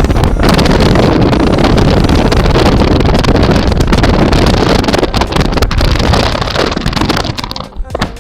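Loud rushing wind and road noise from a moving vehicle, buffeting the microphone. It drowns everything else, then dies away near the end.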